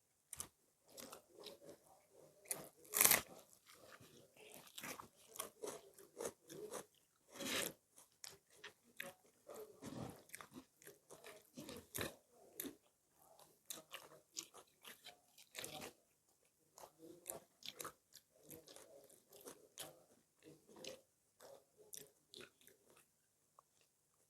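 Close-up eating sounds: many short crunching bites and chewing noises, with two louder crunches about three and seven and a half seconds in.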